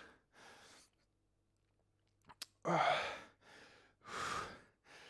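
A man breathing hard through an isometric arm press, short forceful exhales close to a headset microphone. A quiet pause of about two seconds and a small click come before the loudest breath, after which the breaths follow every second or so.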